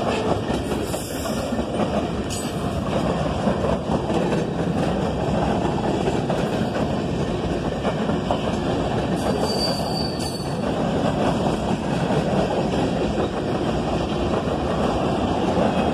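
Freight cars of a CSX train rolling past, their steel wheels running on the rails with a steady, unbroken rumble.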